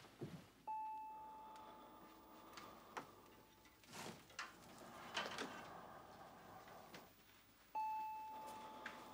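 A clear bell-like chime struck twice, about seven seconds apart, each note ringing out and fading slowly. Faint knocks and creaks fall between the two strikes.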